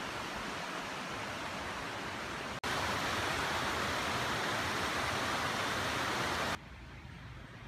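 Mountain stream rushing over rocks: a steady, even rush of water that steps louder about two and a half seconds in and drops much quieter near the end.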